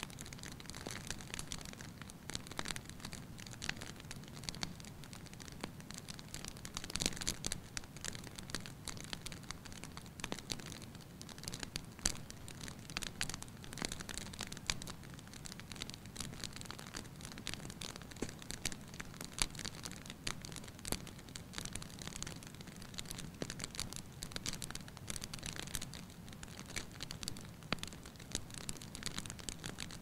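Wood fire burning: a low, steady rush of flame under frequent sharp crackles from the burning logs, with a few louder pops.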